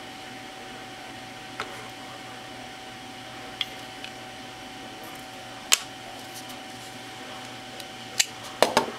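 Small, sharp clicks from handling a miniature 1/3-scale Glock 17 replica and its magazines: a few scattered clicks, the loudest a little before six seconds in, then a quick cluster near the end, over a steady background hum.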